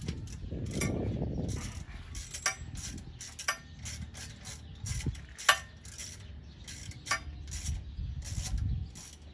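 Hand ratchet wrench clicking in short, uneven strokes as the nuts holding a billet carburetor adapter are backed off their studs, with one sharper knock about halfway through.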